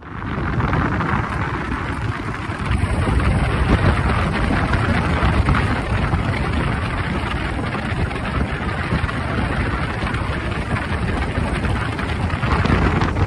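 Bass boat running across the lake under outboard power: a loud, steady rushing drone of engine and water noise that starts abruptly.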